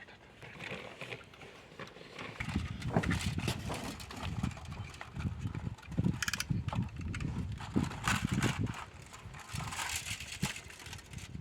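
Irregular knocking and scraping of a knife working on the outer insulation of a heavy 300 sq mm power cable as the sheath is stripped, starting about two seconds in.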